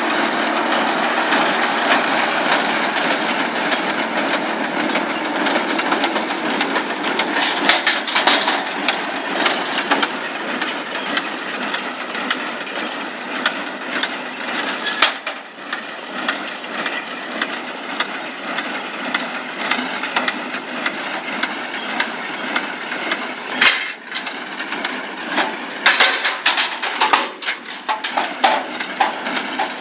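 Tractor and Deutz-Fahr hay baler running steadily while baling, with sharp knocks now and then and a burst of clattering knocks near the end.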